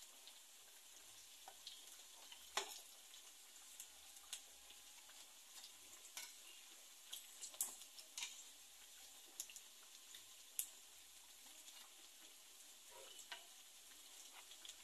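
Empanadas frying in hot oil in a shallow clay pan: a faint steady sizzle with scattered sharp pops and crackles.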